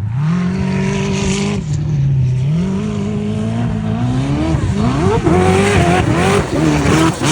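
Sand car's twin-turbocharged LS V8 engine running and revving. Its pitch holds steady, dips about two seconds in, then climbs and falls several times in the second half.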